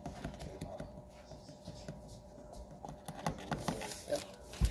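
Plastic scoop tapping and scraping against a plastic baby bottle as powdered formula is spooned in: a run of small irregular clicks, with a louder knock near the end.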